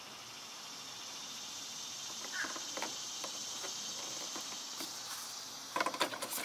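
Steady high insect drone that slowly grows louder, with a couple of faint clicks. Near the end comes a burst of clattering as the license plate and its plastic frame are handled.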